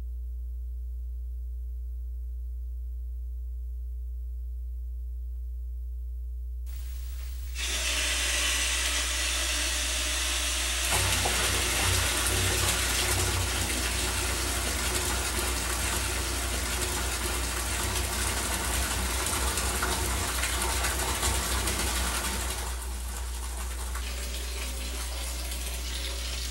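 Water rushing through a water-meter test bench, over a steady electrical hum. The flow starts about seven seconds in, grows stronger around eleven seconds, and eases off somewhat near the end.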